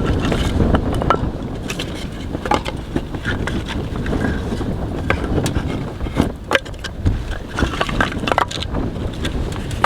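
Strong blizzard wind buffeting the microphone in a low rumble, with scattered crunching and knocking sounds throughout.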